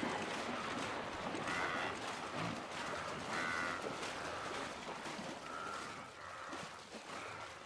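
Water splashing and churning as hippos push through shallow river water, with a few short animal calls over it.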